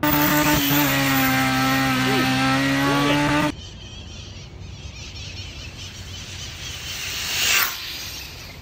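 WLtoys 124019 RC car with a 3500KV brushless motor running flat out on a speed pass: a loud, steady motor whine that cuts off suddenly about three and a half seconds in. Near the end a rush of noise swells and fades.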